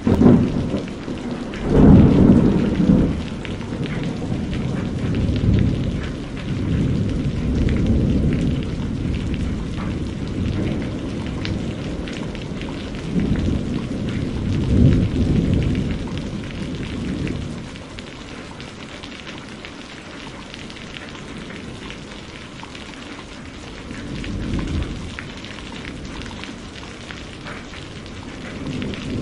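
Heavy rain pouring steadily, with repeated low rumbling swells that rise and fade, the loudest about two seconds in and the rumbling dying down in the second half.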